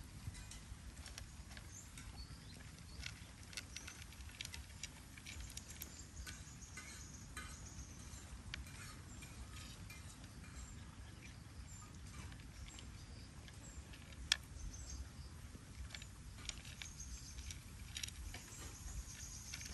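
A cat crunching dry kibble, a steady run of small crisp clicks and chews, with one sharper click about two-thirds of the way through.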